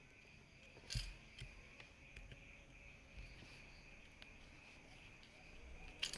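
Soft, scattered taps and clicks of an orange being peeled by hand, with a firmer knock about a second in, over a faint steady high-pitched trill.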